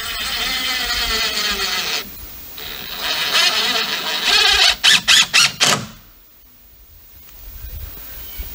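Cordless drill driving a screw into a wooden railing board. The motor whines for about two seconds, stops briefly, runs again, then gives about five quick short bursts as the screw is seated, and stops about six seconds in.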